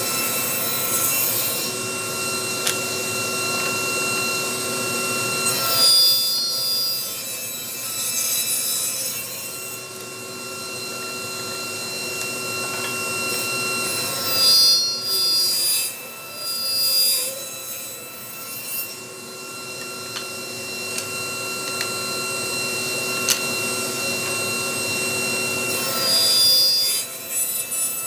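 Power saw running steadily and cutting scrap hardwood into strips, with louder spells as the blade goes through the wood about six seconds in, in the middle, and near the end.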